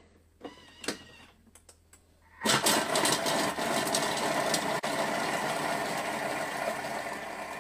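Thermomix motor and blade spinning at speed 5, chopping a quartered onion in the bowl. It starts suddenly about two and a half seconds in with a clatter, then runs as a steady whirr, after a few faint clicks while the speed is set.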